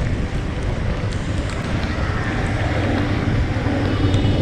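Steady wind buffeting the microphone over the low hum of a moving vehicle in traffic.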